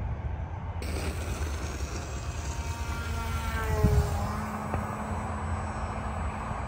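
O.S. 15 LA glow engine of a small balsa RC plane flying overhead, its propeller whine sliding down in pitch as the plane passes about three to four seconds in, then running on at a steady pitch.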